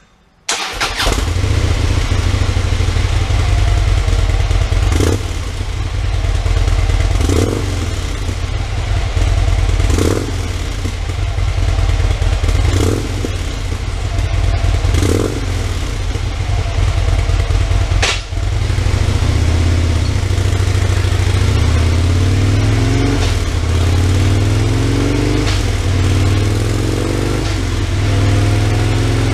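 2015 Harley-Davidson Road Glide's V-twin starting about half a second in and running through its stock catalyst pipe and stock mufflers. The exhaust note changes sharply every two to three seconds at first, then settles into steadier running.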